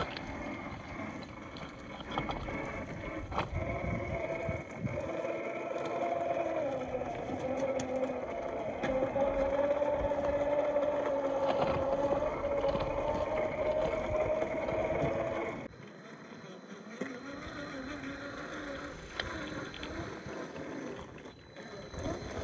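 Electric motor and gear whine of a scale RC rock crawler on the move, the pitch gliding up and down with the throttle, with scattered clicks and knocks from the tyres and chassis on the terrain. The whine drops away suddenly about 16 seconds in, leaving quieter noise.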